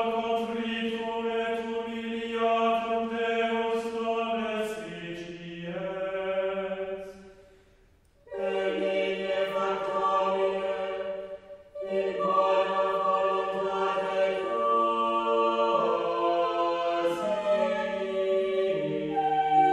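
Background choral music: voices holding long chords that change every few seconds, fading out briefly about seven seconds in and resuming just after eight seconds.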